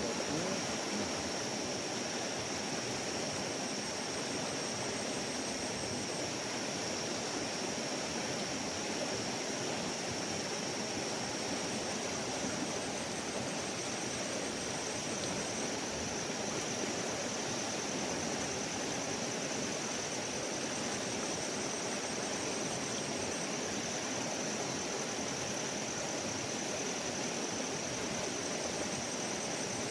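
A fast, rain-swollen river running in spate, giving a steady rush of turbulent water, with a faint steady high-pitched tone above it.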